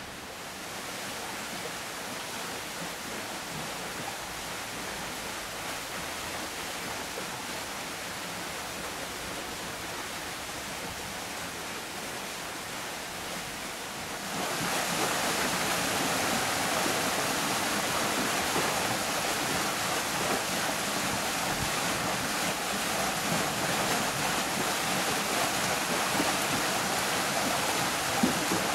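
A steady rush of flowing water, which becomes clearly louder about halfway through: water churning out from under a wooden waterwheel into a stony channel.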